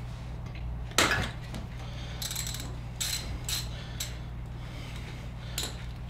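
Metal clicks of a 3/8-drive ratchet with a hex bit working a dirt bike's oil drain plug out: a sharp knock about a second in, then scattered single clicks.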